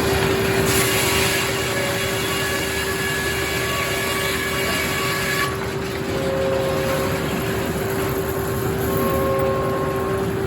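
Circular sawmill running and sawing a hard maple log: a steady hum under a high, multi-toned whine, which softens about five and a half seconds in.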